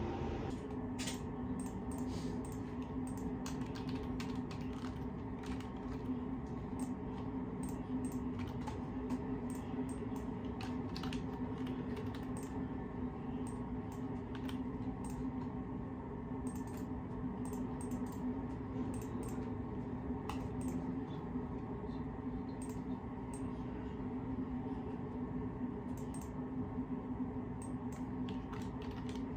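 Computer keyboard typing: irregular, rapid key clicks running on and off, over a steady low hum.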